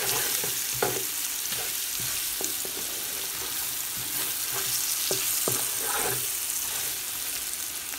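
Pieces of yam sizzling as they fry in spiced oil in a pan. A steady hiss runs throughout, with scattered knocks and scrapes as a wooden spatula stirs them against the pan.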